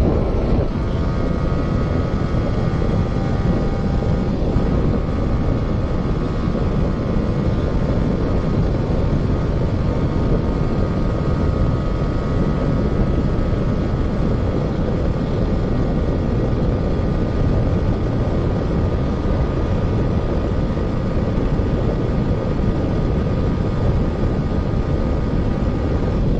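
Yamaha R15 V3's 155 cc single-cylinder engine running at high revs in sixth gear near its top speed, a steady drone, under heavy wind rush on the onboard microphone.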